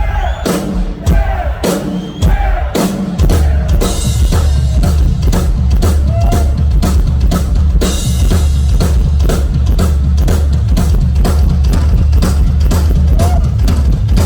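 Rock drum solo on a drum kit: a dense stream of fast strikes over continuous bass-drum pounding from about three seconds in, with cymbal crashes near four and eight seconds in.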